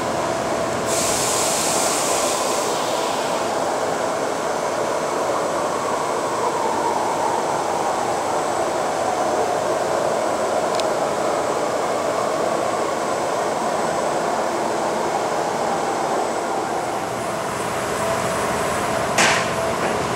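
Fryer MC-45 vertical machining center running with its axes traversing: a steady mechanical whir whose tone wavers slowly. A hiss lasts a couple of seconds about a second in, and a brief sharp burst near the end is the loudest moment.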